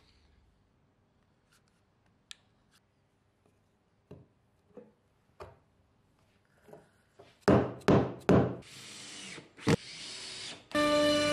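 Light clicks and taps of parts being handled and set down, then a cordless drill driving screws into wooden boards in several short loud bursts, starting about two thirds of the way in. Music comes in near the end.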